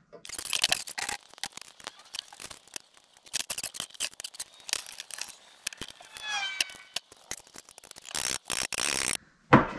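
Irregular clicks, clinks and knocks of metal scooter parts being handled as a scooter bar clamp is worked onto the bars and fork, with a brief squeak about six seconds in and a louder scrape near the end.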